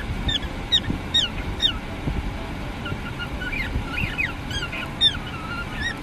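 Cockatiel calling: a quick series of short chirps that sweep down in pitch, about two a second, followed by a looser run of warbling chirps and whistles.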